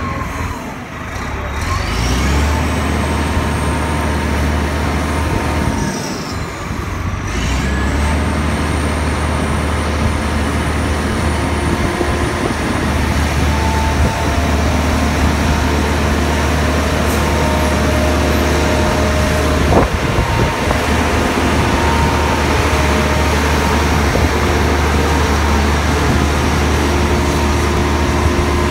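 Rough-terrain crane's diesel engine running under load with a steady low drone and a high whine as the crane works its boom. The drone and whine step up about two seconds in, dip briefly around six seconds and come back.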